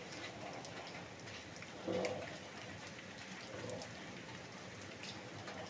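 Heavy rain falling steadily, with scattered drips pattering on hard surfaces.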